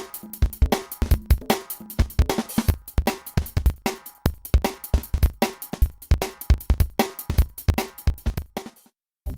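Background music with a fast, steady drum beat that fades out and stops shortly before the end.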